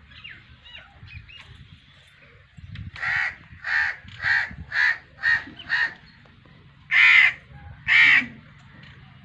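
A crow cawing: a quick run of six short caws, then two longer, louder caws.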